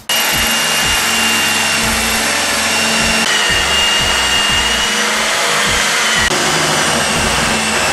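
Electric drill running steadily at full speed with a faint high whine, boring the gas line holes through a refrigerator wall. It starts abruptly.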